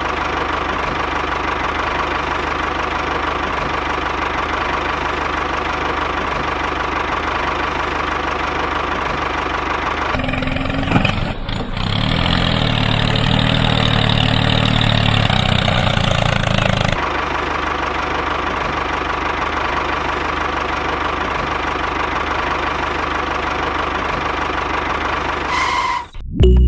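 A mini tractor's engine running steadily. From about ten to seventeen seconds in the sound turns deeper and fuller, then returns to the first steady running.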